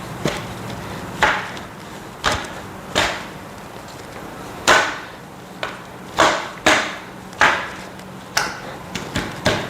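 Steel frame tubes and connectors of a portable greenhouse knocking and clacking as they are handled and fitted together, about a dozen sharp, irregular knocks.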